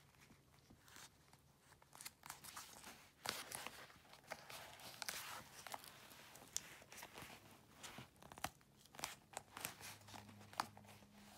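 Fingers pressing and pinching the leather piping along the edge of a Bottega Veneta woven-leather wallet, giving faint scattered crinkles and small sharp clicks.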